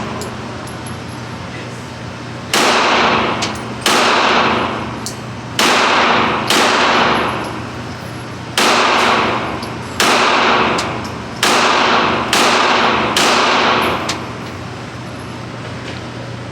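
Gunshots from a firearm, about nine shots fired at an uneven pace over some ten seconds, each one sharp with a long echoing tail.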